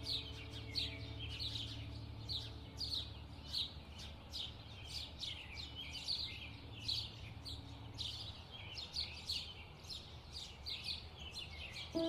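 Birds chirping busily: a long run of short, high, downward-sweeping chirps, two or three a second, over a faint low hum.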